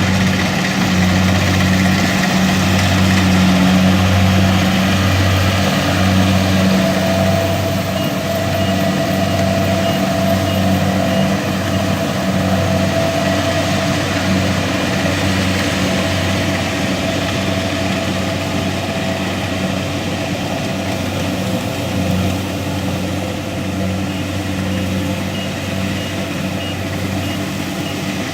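Kubota DC-70 combine harvester's diesel engine and threshing machinery running steadily while harvesting rice, a throbbing drone with a mechanical rattle and whir over it. A faint high repeated beep comes and goes twice.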